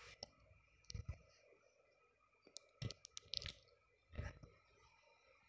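Faint scattered clicks and soft taps in small clusters about a second apart: fingers tapping a phone touchscreen while editing.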